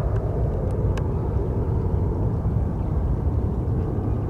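Airbus A319 airliner's jet engines at climb power just after takeoff, heard from the ground as a steady low rumble that eases off slightly as the aircraft climbs away.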